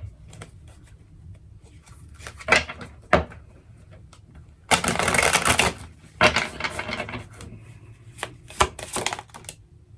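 A deck of oracle cards being shuffled and handled: a handful of sharp card snaps and a longer rush of shuffling about halfway through.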